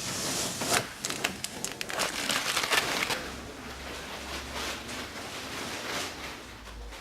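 Crinkling and rustling of vinyl graphic transfer paper being handled, with many small crackles over the first three seconds, then fading to a faint hiss.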